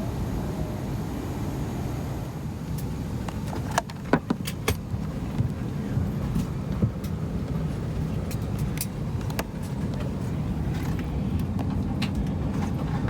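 Steady low rumble of an Airbus A319 cabin on the ground, with a cluster of sharp clicks and clinks about four seconds in and a few scattered clicks later.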